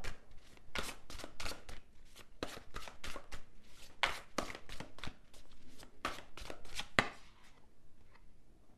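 Deck of tarot cards being shuffled and handled on a table: a run of irregular snaps and taps that stops over a second before the end.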